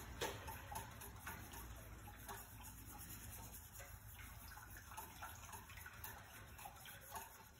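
Faint, irregular ticks and scrapes of a spoon stirring thick cheese sauce in a saucepan on the stove.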